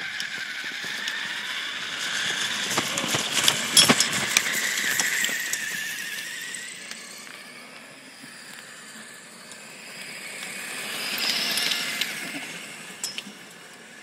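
Electric motors of a Traxxas E-Maxx RC monster truck whining as it tows a bicycle trailer, the pitch rising and falling with its speed. It gets loudest about four seconds in, with some clattering, and again near twelve seconds as it comes close, then fades.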